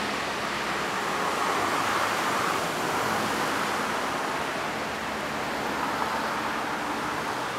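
Steady rushing noise of distant road traffic and a passing diesel-hauled train, heard from far off, swelling slightly a couple of times.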